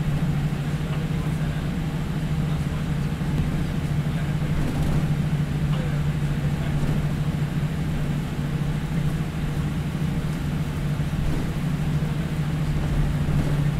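Cabin noise of a Boeing 787-8 taxiing, heard from a window seat over the wing: a steady hum from its Rolls-Royce Trent 1000 engines at taxi power, over the hiss of the cabin air.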